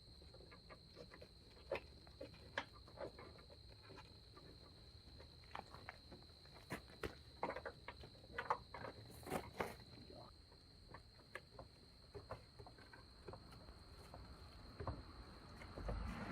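Scattered light clicks and taps of plastic headlight-assembly parts being handled and fitted, with a faint steady high-pitched tone underneath.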